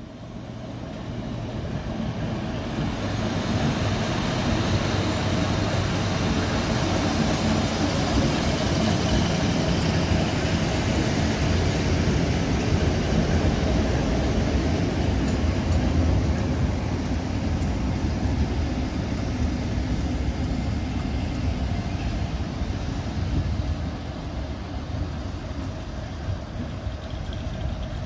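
A pair of GBRF Class 60 diesel locomotives running past: diesel engine and wheels on the rails, building over the first few seconds, loudest as they pass close, then easing slowly toward the end.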